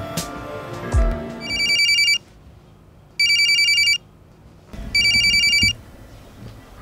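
Mobile phone ringing: three short bursts of a rapid, trilling electronic ringtone, each under a second long and about a second apart. Soft background music fades out under the first ring.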